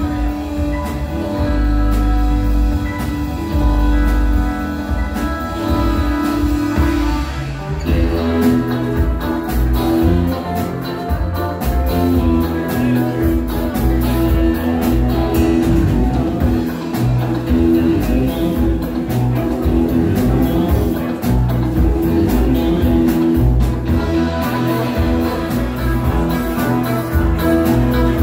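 Rock band playing live: electric guitar, bass guitar and drums, loud and continuous, with a change in the playing about eight seconds in.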